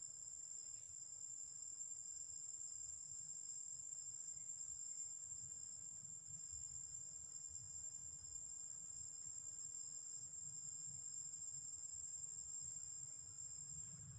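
A steady high-pitched drone of forest insects that holds without a break, over a faint low rumble.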